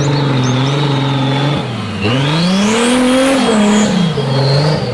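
Off-road car engine sound effect: idling steadily, revved up about two seconds in, then falling back to idle near the end, with a high whine that rises and falls along with the revs.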